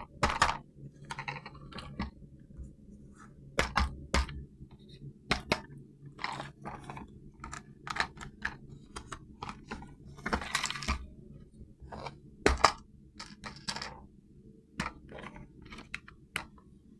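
Irregular clicks, taps and short crinkling rustles from hands handling a plastic toy RC car and its packaging, with a longer rustle about ten seconds in, over a faint steady low hum.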